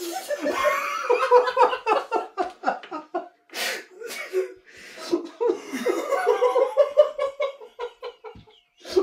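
A man laughing helplessly in two long fits of rapid bursts, with a sharp gasping breath between them about three and a half seconds in.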